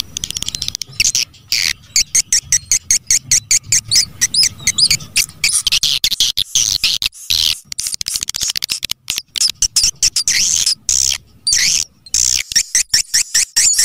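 Swiftlet call-sound recording used as a lure to draw swiftlets into a nesting house: rapid trains of dry clicks mixed with high, warbling twittering chirps, broken by brief gaps.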